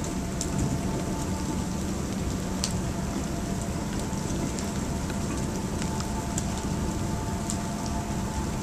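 Steady rain falling, with occasional sharp ticks of drops striking a hard surface, over a faint steady hum.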